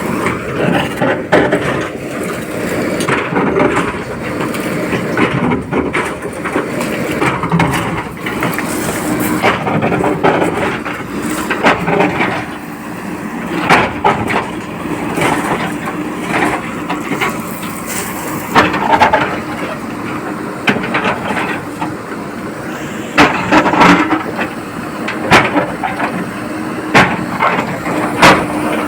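JCB 4DX backhoe loader's diesel engine running steadily, with frequent sharp knocks and clanks that grow louder from about halfway through.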